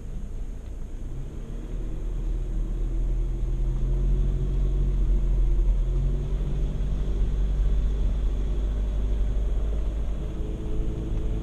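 Volkswagen Amarok's 2.0 BiTDI four-cylinder diesel engine running under load as the pickup drives off-road, its note growing louder about a second and a half in, over a heavy low rumble.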